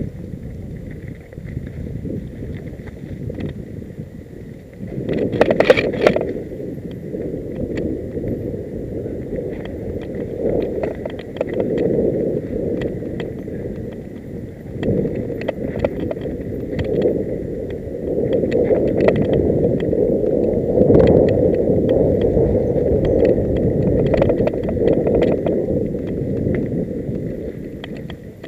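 Mountain bike rolling fast down a rough dirt singletrack: tyres on dirt and dry leaves, and the bike rattling and clattering over bumps, under a low rumble of wind on the microphone. A hard jolt comes about five seconds in, and the ride gets louder and rougher from about eighteen seconds.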